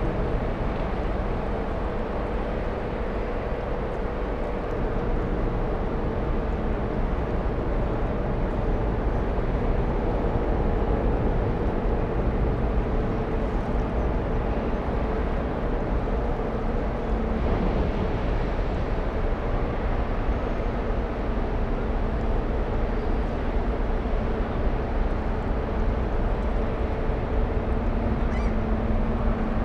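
Large passenger ferry's engines running as it passes close by: a steady deep rumble with a droning hum over it.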